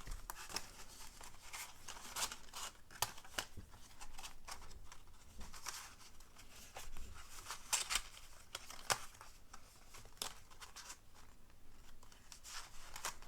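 Paper and cardstock being handled and folded by hand: irregular rustles, creases and light taps as the flips are pressed down.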